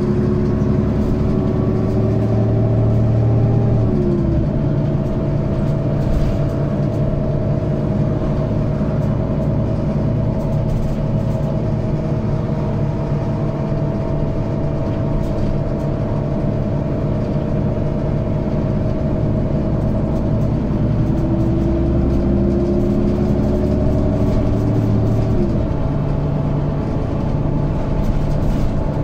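Mercedes-Benz Citaro O530G articulated bus with a Euro 3 diesel engine and Voith DIWA 3 automatic gearbox, heard from on board while driving. The engine pitch climbs and then falls away about four seconds in, runs steadily over a constant whine, then climbs again from about 21 seconds and falls away near 25 seconds.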